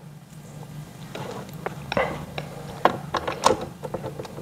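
Scattered clicks, taps and light scrapes of metal bolts being turned by hand with an Allen key to fasten a chair armrest.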